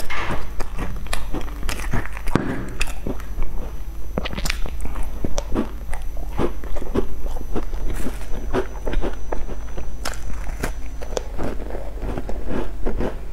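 Biting and chewing a sesame-seed-crusted bun with a soft creamy filling. The crust gives crisp crunches and crackles, heard as many small, irregular clicks and mouth sounds.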